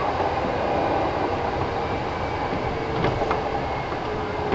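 Kintetsu 1000 series electric train running between stations: a steady rumble of wheels on rail, with a couple of sharp clicks about three seconds in and a faint steady whine from about halfway on.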